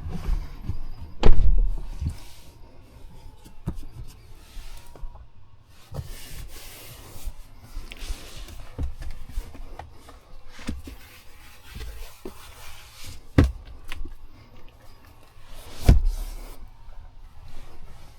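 Handling noises: soft rubbing and scraping with a few sharp knocks, the loudest about a second in and two more near the end, each of the first and last followed by a deep thud.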